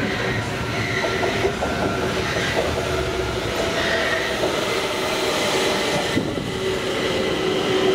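Metro train running at the station platform: a steady rumble with a steady whine through it.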